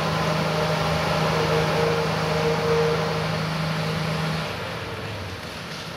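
Diesel engine of a small rail maintenance vehicle running steadily in the rail yard. Its steady hum stops about four and a half seconds in, and the overall sound then fades.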